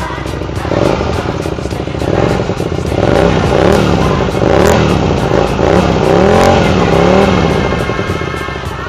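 Motorcycle engine running and being revved through a twin-outlet chrome exhaust: from about three seconds in, the pitch rises and falls in several quick blips of the throttle one after another.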